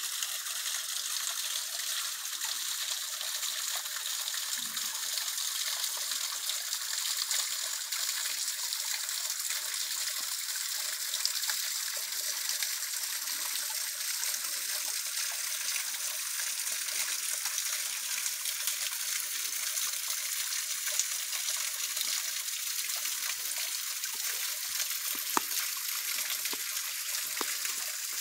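Small waterfall: a thin stream of water falling down a rock face and splashing, a steady hiss with little low rumble. Two brief ticks in the second half.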